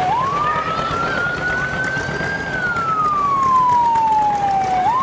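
Emergency vehicle siren sounding a slow wail: a single tone that swings up sharply at the start, climbs slowly to a peak about halfway, falls slowly, then swings up again at the end.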